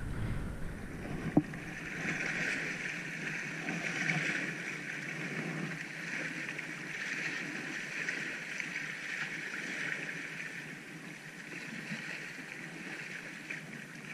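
Small sea waves washing and lapping against shoreline rocks, a steady hiss that swells and eases, with a single click about a second and a half in.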